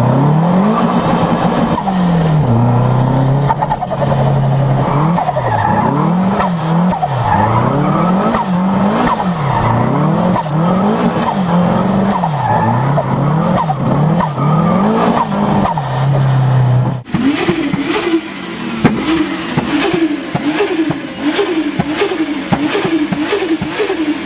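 Turbocharged car engine revved over and over, its pitch rising and falling about once a second, with a short high chirp of turbo flutter near the top of each rev. About seventeen seconds in, the sound cuts to another turbocharged car revving faster and higher, with a rapid crackle of clicks.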